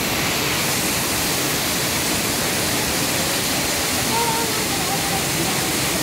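Waterfall pouring down a rock face, a steady, unbroken rush of falling water.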